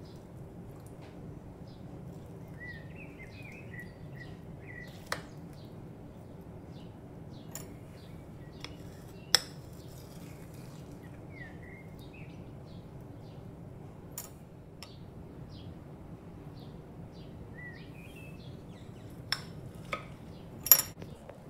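Metal spoon scraping and clinking in a ceramic bowl and against a glass tumbler while scooping soft frozen yogurt. There are a few sharp clinks: a loud one about halfway through, and the loudest near the end, ringing like glass. A steady low hum and faint bird chirps run underneath.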